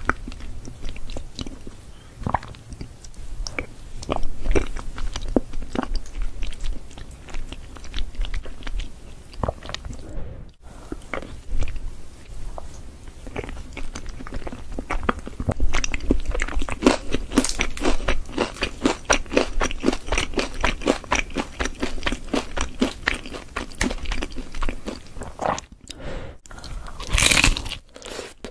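Close-miked eating: a person biting and chewing cheesy lasagna, with sharp crackly mouth clicks that grow rapid and dense about halfway through.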